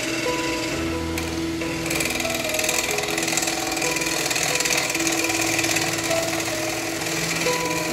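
A gouge cutting the rim of a natural-edge wooden bowl spinning on a wood lathe, a hissing cut that grows louder from about two seconds in as shavings fly. Background music with held notes plays throughout.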